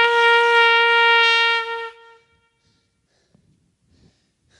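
A shofar (ram's horn) blown in one long, steady blast on a single note, ending about two seconds in and ringing on briefly in the room.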